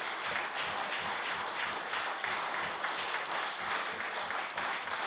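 Applause from a group of people: many hands clapping densely and continuously.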